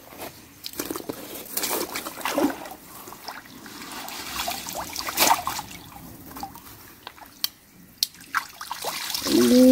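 Stream water sloshing and splashing as leafy branches and then a collapsible mesh net fish trap are pulled up out of a shallow stream, with water trickling and dripping off the net. A short voiced exclamation comes right at the end.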